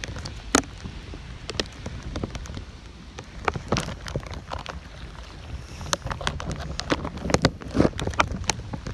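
Gusty storm wind buffeting the microphone as a low rumble, with irregular sharp taps of raindrops striking close by.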